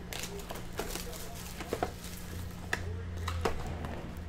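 Cellophane shrink wrap crackling as it is peeled off a cardboard trading-card box, then the box's lid flap being pulled open: a run of crinkles and sharp little clicks over a steady low hum.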